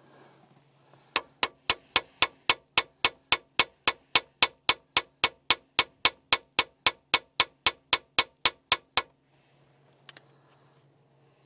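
An aerosol spray can being shaken hard, its mixing ball clacking inside in an even rhythm of about four strokes a second for about eight seconds, then stopping.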